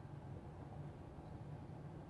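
Quiet room tone with a faint, steady low hum; no distinct event stands out.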